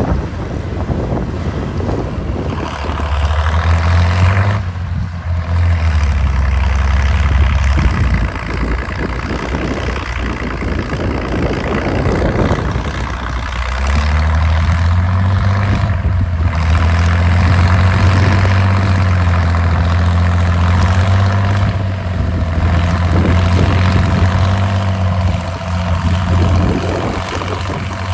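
International Harvester tractor engine running steadily under load as it pulls a plow through the soil. The low engine note swells about three seconds in, eases off for a few seconds, and swells again from about halfway through as the tractor comes close.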